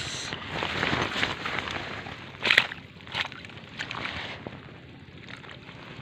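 Water sloshing and splashing as a mesh fish keep net is moved about in shallow water, with one louder splash about two and a half seconds in and a few lighter splashes after it.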